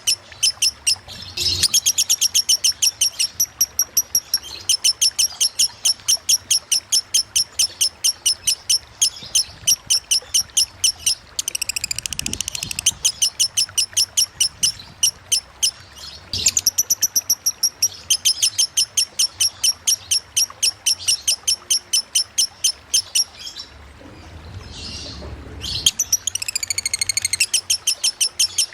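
Lovebird of the 'konslet' song type singing long runs of sharp, rapid chirps, about seven a second. The runs break off briefly a few times and are mixed with a few denser, sliding phrases.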